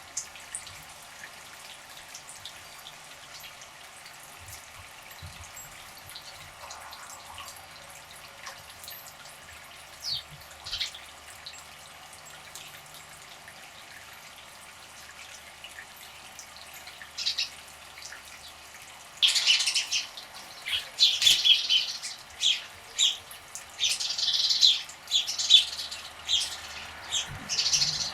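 Birds at a bird bath: a few scattered chirps, then, about two-thirds of the way in, a loud run of quick splashes as a bird bathes and flutters in the water.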